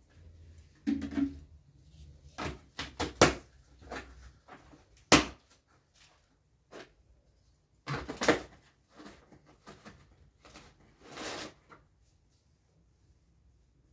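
Plastic lids and caps being handled and pressed onto large pickle jars: irregular sharp clicks and knocks, the loudest a few seconds in.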